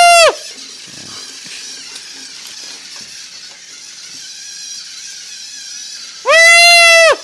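Two loud electronic beeps from a LEGO Mindstorms robot's speaker, each under a second with a slight upward bend at the start and a drop at the end. One ends just after the start and the other comes about six seconds in. Between them the robot's drive motors and gears whir faintly.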